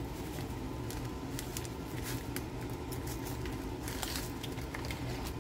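Foil-lined snack packet crinkling as crushed graham cracker crumbs are shaken out of it onto a layer of graham crackers, heard as scattered light crackles and ticks over a steady low hum.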